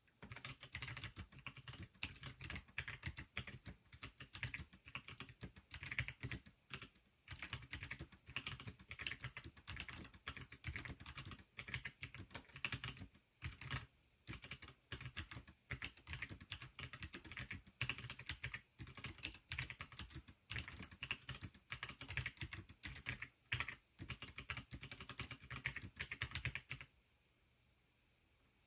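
Fast, continuous typing on a hand-built Pinky4 keyboard, a rapid run of key clicks that stops about a second and a half before the end.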